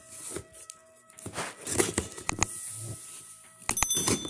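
Scissors slitting the packing tape on a cardboard shipping box, with scraping and rustling of the cardboard as it is handled, in a string of short, irregular scrapes and clicks.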